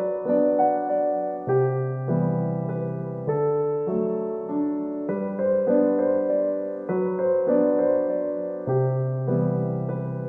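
Background music: a soft electric-piano piece playing gentle sustained chords that change about once a second.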